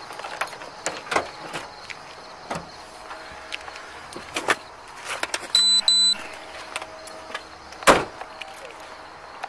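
Scattered clicks and knocks, then two short, loud electronic beeps a little after halfway, and one heavy thump near the end.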